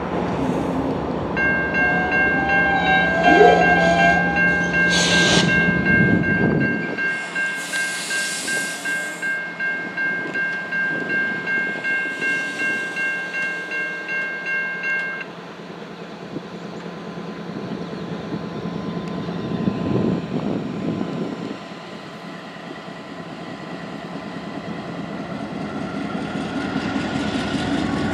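Safetran type-3 electronic crossing bell ringing steadily from just after the start, cutting off about halfway through once the gates are down. Under it runs the low rumble of the Norfolk Southern diesel locomotives, which is heaviest in the first few seconds.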